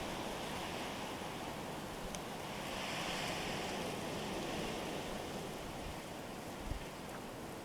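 Nor'easter wind blowing in steady gusts, swelling about three seconds in, with a brief low buffet of wind on the microphone near the end.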